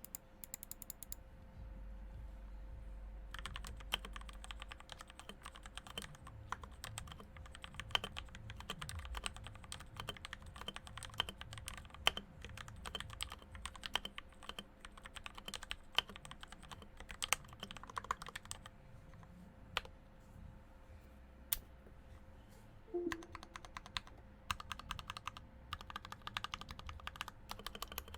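Typing on a RAKK Pluma mechanical keyboard with lubed Gateron Pro Yellow linear switches. A fast, steady run of keystrokes starts about three seconds in, with a brief lull about two thirds of the way through.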